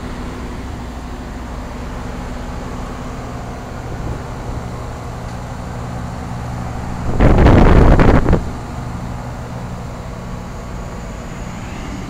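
Rheem Classic 10 SEER 3-ton central air-conditioner condensing unit running in cooling mode, its scroll compressor and condenser fan giving a steady low hum, on a cold day without a low-ambient kit. About seven seconds in, a loud rush of noise lasting just over a second covers it.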